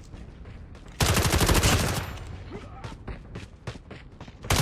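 Rapid bursts of sharp cracks: a dense volley about a second in, scattered single cracks after it, and another volley starting near the end.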